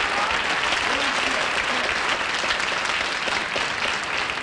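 Studio audience applauding, a dense steady clapping that eases slightly toward the end.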